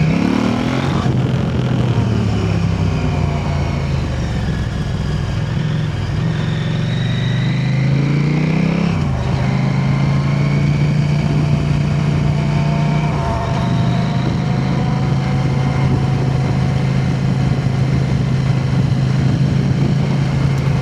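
KTM 890 Adventure R's parallel-twin engine running through an Arrow aftermarket exhaust while being ridden. The revs climb at the start, climb again and drop back about nine seconds in, then hold a steady cruise.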